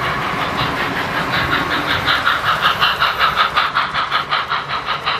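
Model steam locomotive and freight boxcars running past close by: a rapid, even rhythmic clicking that grows louder about two seconds in as the train nears.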